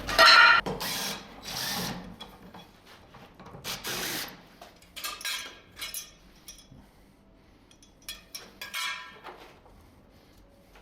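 Power tool worked in short bursts on door hardware, loudest in the first two seconds, then several quieter bursts later on.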